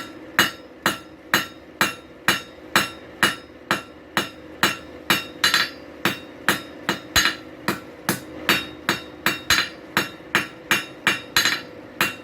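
Blacksmith's hammer striking hot steel on an anvil at a steady pace, about two blows a second, each with a short ring, drawing the bar down to a taper. A steady hum runs underneath.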